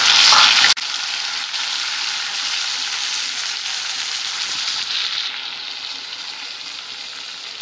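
Tomato pieces and onions sizzling in hot oil in a kadai while a metal spatula stirs them. The hiss is loudest in the first second, then drops to a steadier frying sizzle that slowly fades.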